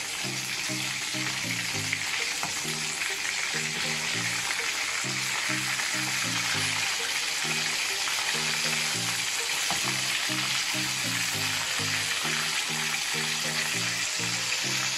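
Fish pieces sizzling steadily as they deep-fry in hot oil, being turned over with a slotted spoon.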